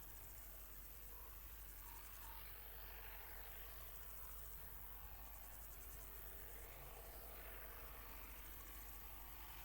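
Crickets chirping faintly in a field: a steady, high-pitched, rapidly pulsing trill that carries on throughout.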